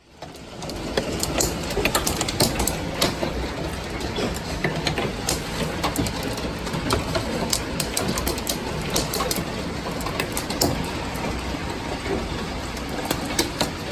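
Hail pelting down in a dense, steady clatter of many small hits over a heavy rush of rain.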